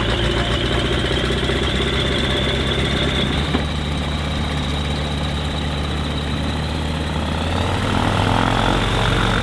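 Small propeller aeroplane's piston engine running steadily, a low drone with a thin high whine above it.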